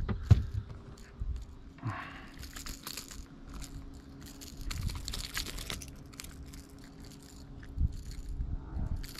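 Scattered clicks, small metallic jingles and rustles of a snook being unhooked from an artificial lure and released, over a faint steady hum.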